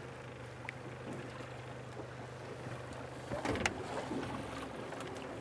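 Small boat on the water with an outboard motor idling in a steady low hum, under a haze of wind and water noise. A brief cluster of knocks comes about three and a half seconds in.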